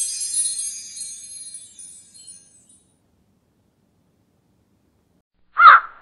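Jingling, bell-like intro music fading out over the first two seconds or so, then silence. Near the end a crow caws loudly once, the first of a rapid run of caws.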